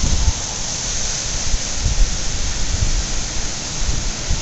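Wind blowing across the microphone: a steady rushing hiss with irregular low buffeting thumps.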